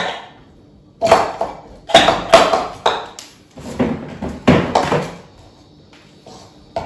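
Onion quarters dropped one after another into the plastic bowl of a small food processor: a string of irregular knocks and clatters, about ten in all, with short pauses between them.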